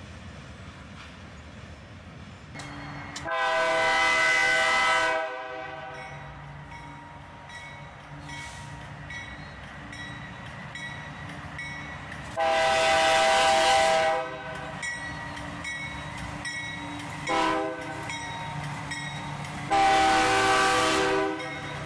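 Diesel locomotive air horn sounding the grade-crossing signal: two long blasts, a short one, then a long one, each a chord of several notes. Between the blasts there is a steady low rumble.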